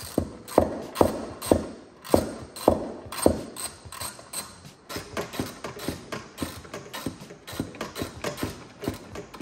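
Hands working in a car trunk: a run of sharp knocks and clicks from the trunk liner and trim being pulled and handled. About two a second and loud for the first three seconds or so, then lighter and quicker.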